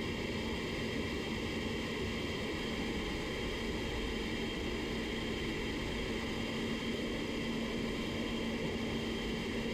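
Paint booth ventilation running: a steady rush of moving air with a constant low hum.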